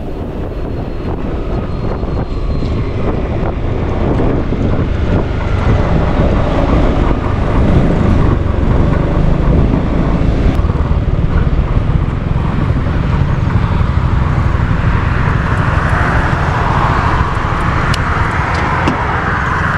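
Wind rushing over the microphone with engine and road noise while riding a Honda Forza 350 scooter, growing louder over the first several seconds.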